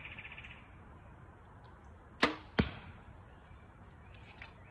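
Two sharp cracks about a third of a second apart.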